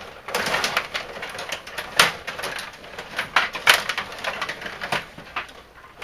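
A series of sharp, irregular clicks and knocks.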